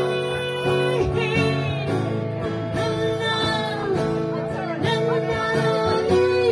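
A woman singing long held notes while strumming a steel-string acoustic guitar.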